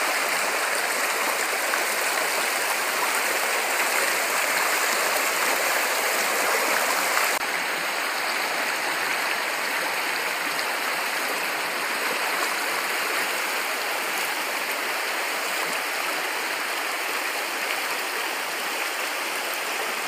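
Shallow rocky stream rushing over stones below a small waterfall: a steady hiss of running water, which drops slightly in level about seven seconds in.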